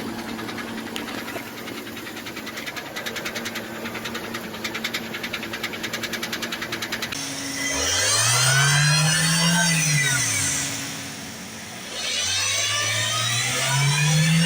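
Car with a faulty automatic transmission: first a fast, even ticking or knocking over a steady hum. Then the engine revs up and drops back, and starts rising again near the end, with a whine that rises and falls along with the revs. These are transmission fault noises left undiagnosed.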